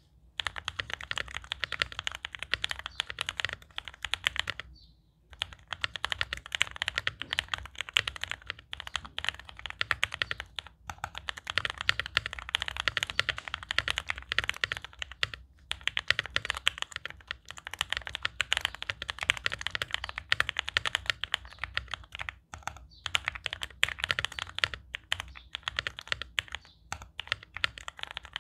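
Constellation mechanical keyboard with Konpeitou switches, dampened with two layers of case foam, being typed on rapidly. The clicks are deep-sounding and poppy, with a short pause about five seconds in.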